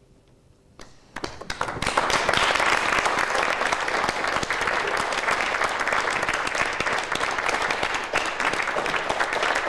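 Theatre audience applauding, coming in about a second in after a brief near-silent pause, swelling quickly and then holding steady.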